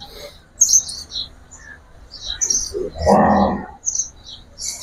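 Small birds chirping busily in short, high-pitched bursts throughout. About three seconds in, a brief louder low sound rises over them.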